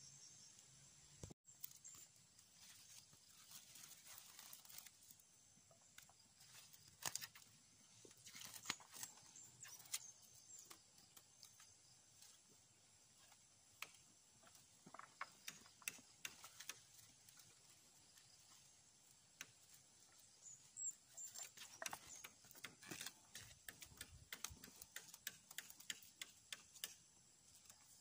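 Quiet handling sounds: irregular light clicks and rustles as plastic twine is pulled off a roll and drawn over a wire trellis for tomato plants.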